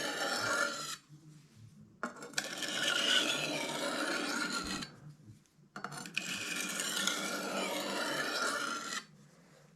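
A large knife blade drawn in long slicing strokes across a coarse sharpening stone: a scratchy rasping scrape, three strokes with short quiet pauses between them.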